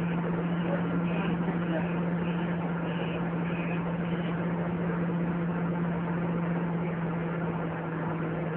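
Scania double-decker bus diesel engine running with a steady low hum, heard from inside the passenger saloon.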